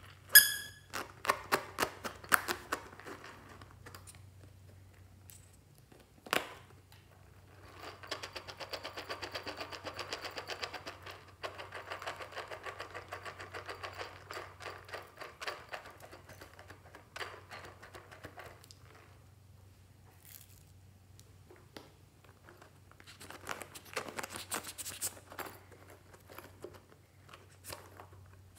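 Small plastic toys and loose sprinkles being handled over a tray of slime: scattered clicks and taps, with a fast, even rattle of small ticks for several seconds in the middle, over a faint low hum.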